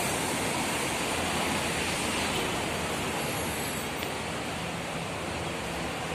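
Steady city road traffic noise: a constant wash of passing cars and buses.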